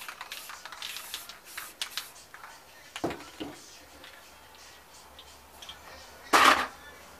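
Gloved hand rubbing over a canvas with crackly rustling, then two light knocks as aerosol spray cans are handled. Near the end comes a short, loud, noisy burst lasting about a third of a second.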